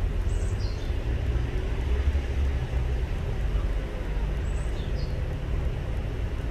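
Steady low outdoor rumble with an even background hiss, and a couple of faint, short, high chirps near the start and again later.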